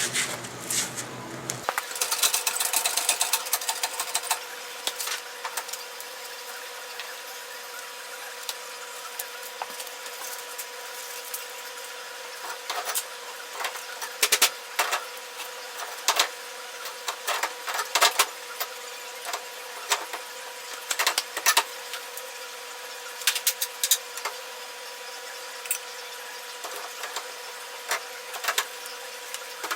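Workshop handling noises: scattered clicks and knocks of tools and parts being handled, with a burst of clatter about two seconds in, over a steady electrical hum.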